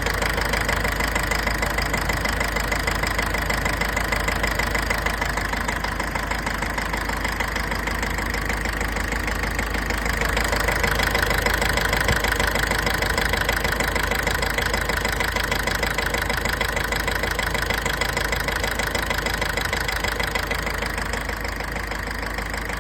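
Mitsubishi L200's 4D56 four-cylinder diesel engine idling with a steady knock, a little louder for a few seconds near the middle. The owner puts the knock down to an injector nozzle problem, with an unchanged fuel filter and poor fuel.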